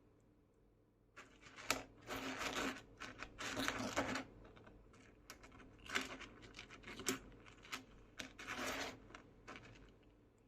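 Articulated 3D-printed PLA dragon toy being flexed and shaken, its jointed plastic segments clicking and rattling in irregular bursts.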